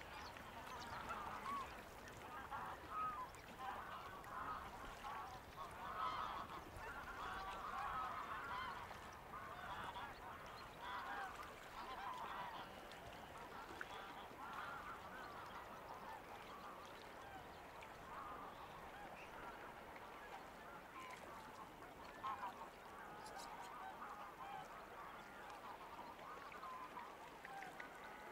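A flock of waterfowl calling: many short, overlapping calls that are busiest in the first half and thin out later.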